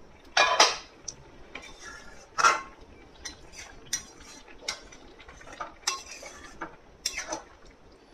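A flat metal spatula scraping and clinking against an aluminium kadai while stirring a thin, milky curry: about six separate strokes, the loudest about half a second in.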